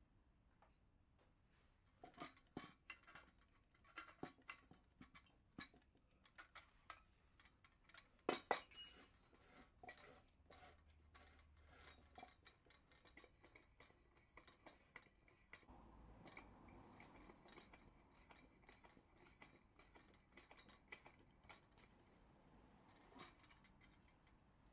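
Faint metal clicks, taps and clinks of a Coleman 508A Sport Ster gasoline stove being handled, with a louder cluster of clinks about eight seconds in.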